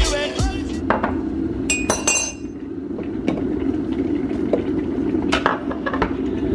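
An electric kettle heats with a steady low rumble while ceramic mugs and a teaspoon clink against the counter several times. The loudest clink rings briefly about two seconds in.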